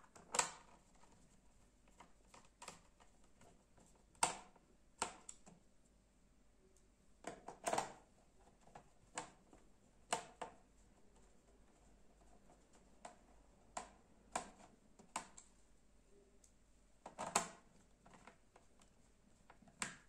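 Irregular clicks and light knocks of a small screwdriver and screws working on a laptop's plastic bottom case during reassembly, about fifteen in all with pauses between them, the loudest about half a second in and near seventeen seconds.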